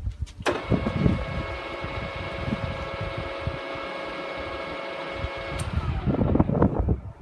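WMW pillar drill's motor and geared head switched on and running steadily with a whine of several fixed tones. It cuts off sharply after about five seconds, with low knocks and clunks before and after.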